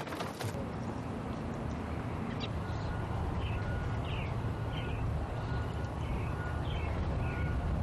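Birds calling in short, repeated chirps over a steady low rumble.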